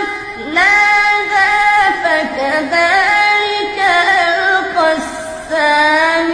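A man reciting the Quran melodically, in a high voice. He holds long, ornamented notes that waver and bend in pitch, pausing briefly for breath between phrases.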